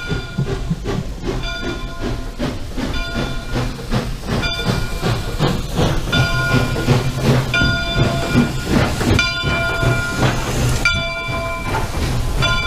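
1912 Canadian Pacific 2-8-0 steam locomotive No. 3716 passing close by under steam, with a rumble and hiss, while its bell rings a little more than once a second.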